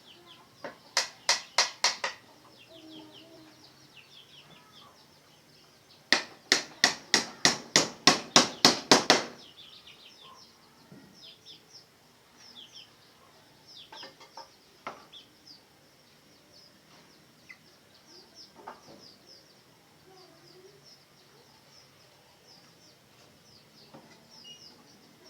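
Hammer blows in two quick runs: about seven near the start and about a dozen a few seconds later, roughly four a second. Small birds chirp faintly throughout.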